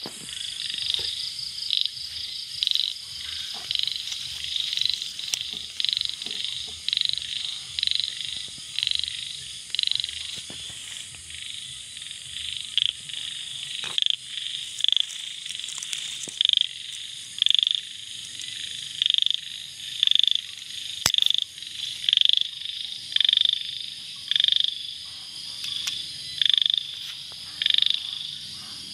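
Frogs calling, a short call repeated about once a second, over a steady high-pitched drone of night insects.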